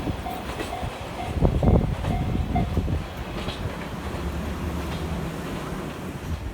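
Freight train wagons rolling past a level crossing with a steady rumble and heavy wheel clacks over the rail joints, loudest about one and a half seconds in. The crossing's warning bell rings in quick, evenly spaced repeats and stops a little over two and a half seconds in, while the rumble of the wagons carries on.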